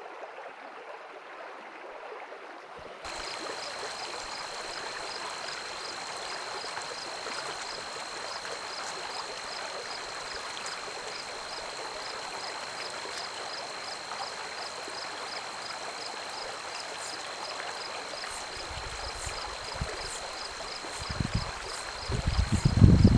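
Shallow, rocky stream rushing over stones in a steady wash of water. Near the end, gusts of wind buffet the microphone.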